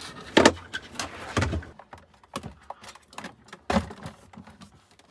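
Knocks and clatters of things being taken out of and packed into a small cabinet under a camper van's sink, with about four sharper knocks spread through and lighter clicks between them.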